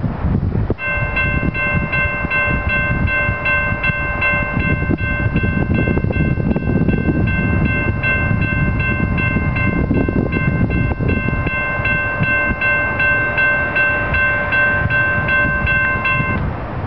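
Railroad grade-crossing warning bell ringing in a fast, steady repeat as the crossing activates for an approaching train. It starts about a second in and stops shortly before the end, once the gates are down. Wind buffets the microphone throughout.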